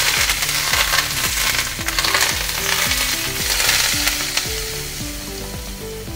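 Hot oil poured over fresh mint, coriander, green chillies and ginger on top of a pot of haleem, sizzling and crackling hard at first and slowly dying down: the tempering (baghar) of the dish. Soft background music plays underneath.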